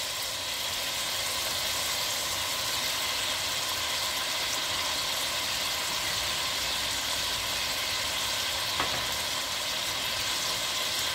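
Meat and sliced onions sizzling steadily as they fry in an aluminium kazan, an even frying hiss, with one light click about nine seconds in.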